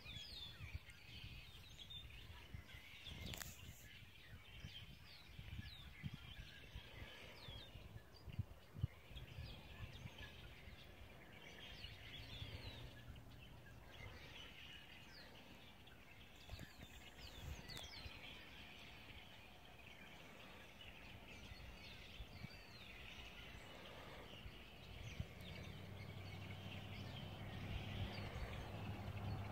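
Faint outdoor ambience: many short chirping calls scattered throughout over a low wind rumble, with a vehicle's engine hum growing louder near the end.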